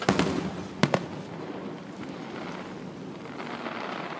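Aerial fireworks bursting: two sharp bangs, one right at the start and another just under a second later, each trailing off in echo.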